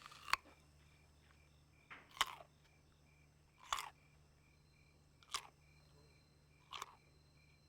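Five short, sharp clicks or knocks, evenly spaced about one and a half seconds apart, over a faint low hum.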